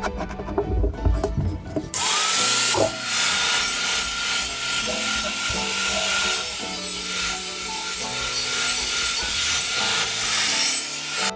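A few knocks and scrapes, then an electric power tool starts about two seconds in. It runs steadily under load on sheet aluminium with a loud hiss and a high, even whine, and stops just before the end.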